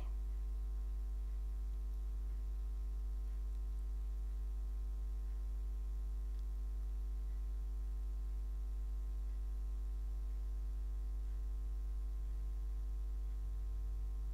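Steady low electrical hum, the mains hum of the recording, with faint unchanging tones above it and no other sound.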